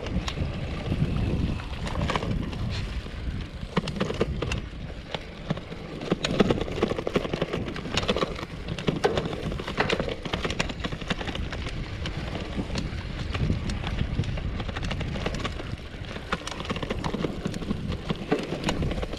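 Polygon Bend R2 gravel bike rolling over a rough dirt footpath: a continuous rattle and clatter of tyres and frame over the bumps, with many sharp knocks, over a low wind rumble on the camera's microphone.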